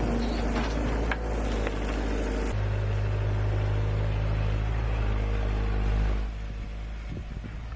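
A machine's engine running steadily with a low hum. It changes abruptly about two and a half seconds in, becoming a stronger low drone, then drops quieter about six seconds in.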